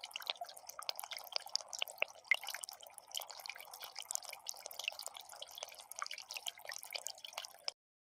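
Water from a small concrete fountain, trickling and splashing in a rapid patter of small drops, which cuts off suddenly near the end.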